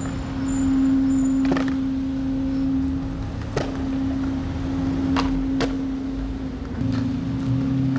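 Skateboards clacking on concrete: four sharp hits as boards are popped and landed around a concrete ledge, over a steady low hum.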